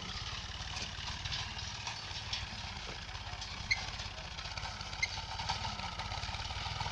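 Tractor engine running steadily while pulling a plough, with an even low firing pulse. Two brief high chirps sound over it, about halfway through and a second or so later.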